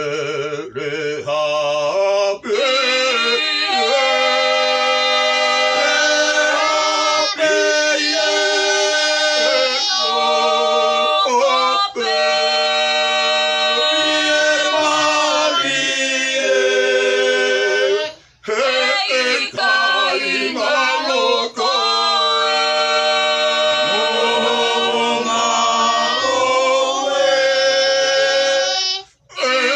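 A group of men and women singing together unaccompanied, in long held phrases with brief breaks between them, about a third of the way and two thirds of the way in, and again near the end.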